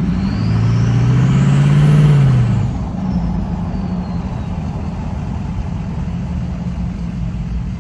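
Ford Excursion's turbo-diesel V8 pulling under throttle, heard from inside the cab. The engine note swells and rises slightly in pitch for about two seconds, with a high rising whistle from the turbo, then eases back to a steady cruise with road noise.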